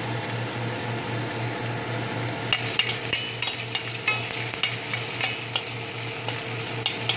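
Garlic, ginger and onion sizzling in oil in a stainless steel pan, being sautéed toward golden brown. From about two and a half seconds in, a metal spoon stirs them, clinking and scraping against the pan.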